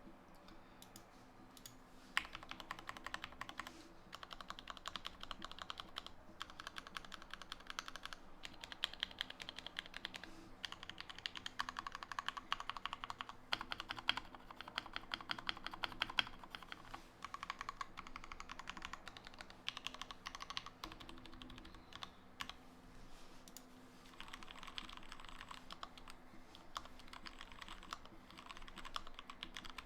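Typing on an Anne Pro 2 mechanical keyboard with lubed Gateron Milky Yellow linear switches and OEM-profile ABS keycaps, its case dampened with foam and silicone. Rapid keystrokes start about two seconds in and come in quick runs with brief lulls.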